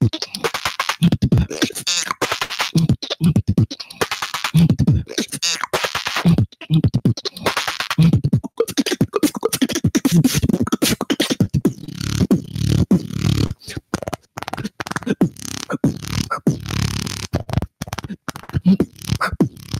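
Solo beatboxing into a handheld microphone: a fast, dense run of mouth-made kicks, snares and clicks, with a held low tone a little past the middle.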